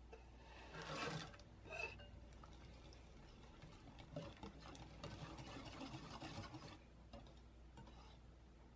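Wire whisk stirring chopped chocolate into custard cream in a glass bowl: faint wet scraping and tapping of the wires against the glass. There are a couple of brief louder clatters a second or two in, then steadier whisking.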